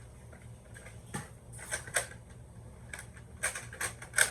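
Plastic Nerf toy blaster being handled, with scattered clicks and rattles of parts being fitted. They come in a few small clusters, the busiest and loudest near the end.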